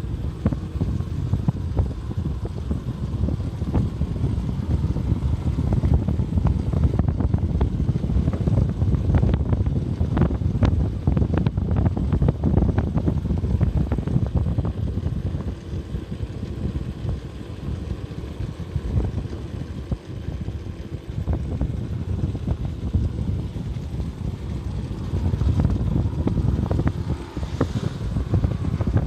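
A vehicle driving along a road, its engine and road noise mixed with heavy wind buffeting on the microphone, steady throughout with many short crackles.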